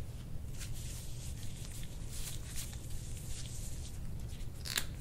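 Soft, irregular rustling and friction of hands moving over skin and clothing on a treatment table, over a low steady hum; a single sharper rustle comes near the end.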